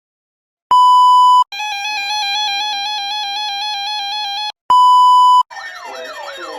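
Electronic alert tones: a short steady beep, a warbling tone lasting about three seconds, and a second short beep, followed about five seconds in by several sirens wailing over one another.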